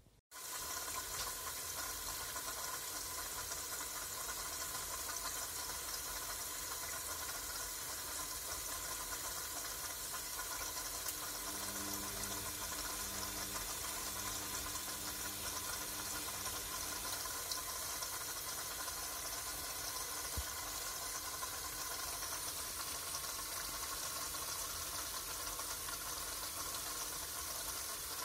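Bosch Classixx 6 front-loading washing machine taking in water: a steady rushing hiss with a faint whine, switching on abruptly right at the start. A low hum joins it for several seconds midway.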